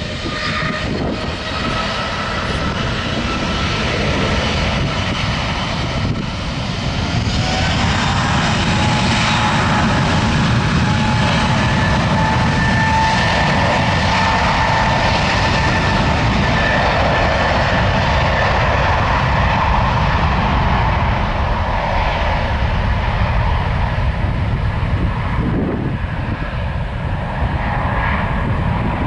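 Heavy jet airliner's engines passing close, a loud steady rumble with several whining tones over it; about eight seconds in a new whine slides up and then holds.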